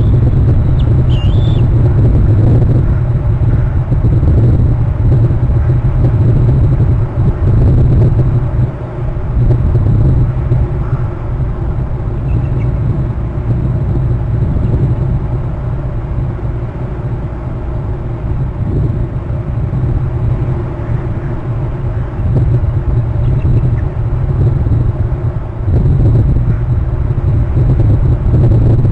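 Steady low rumble of wind buffeting an outdoor camera microphone, swelling and easing. In the first second or two a few faint, high, bending eagle calls sound through it.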